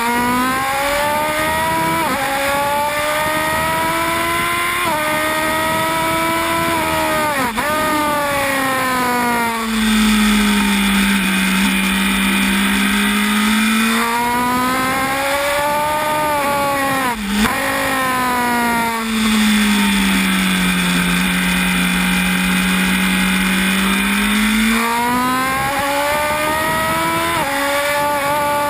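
Honda CB1000R's inline-four engine at racing revs, heard onboard: it pulls up through the gears with quick upshifts, then drops sharply twice as the rider brakes and downshifts for corners, and climbs again near the end. Steady wind rush runs underneath.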